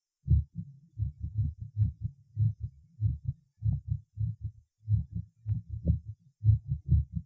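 Heart sounds recorded at the cardiac apex of a patient with tachysystolic atrial fibrillation: fast, irregular dull thumps with no regular rhythm and varying loudness, the sign of the arrhythmia.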